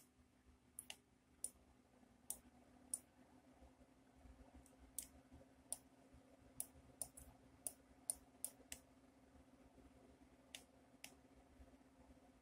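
Computer mouse buttons clicking: a scattering of sharp single and paired clicks at irregular intervals, over a faint steady low hum.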